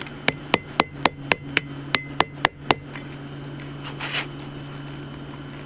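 Hand hammer striking a drill bit used as a punch to open the eye of a red-hot railroad spike on an anvil: about ten quick, sharp blows, roughly four a second, stopping a little under three seconds in, over a steady low hum.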